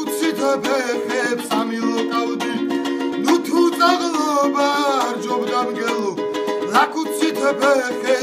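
Background music: steady held notes under a wavering, bending melody line.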